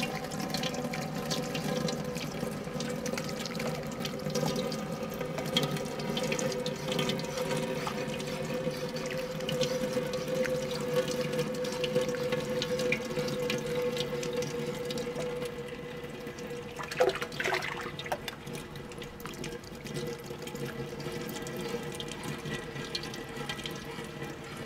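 Grape juice and crushed grape pulp pouring and trickling through a stainless-steel mesh strainer into a large aluminium pot, with a steel spoon stirring and clicking against the mesh, and one sharper knock about seventeen seconds in. A steady drone of held tones runs underneath.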